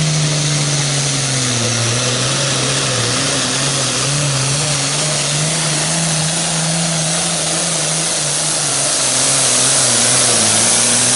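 International Harvester pulling tractor's diesel engine running flat out under load as it drags a weight-transfer sled, a loud steady drone with a wash of exhaust noise. Its pitch sags slowly as the sled's weight bears down on it.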